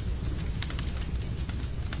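Wood fire burning in a fireplace: a steady low rumble of the flames with frequent sharp crackles and pops.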